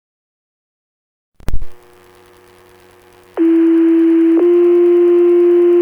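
Two-tone sequential fire pager alert tones heard over a radio scanner, ahead of the voice page: a first steady low tone for about a second, then a second, slightly different tone held on. Before them, about a second and a half in, the squelch opens with a short crackling burst, then a low hiss.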